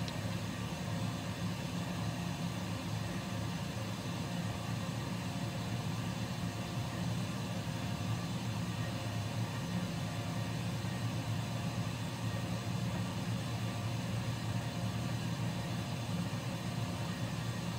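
Air compressor running, a steady low hum that stays the same throughout.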